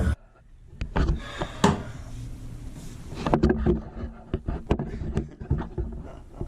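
A series of scattered light clicks and knocks, coming faster from about halfway through.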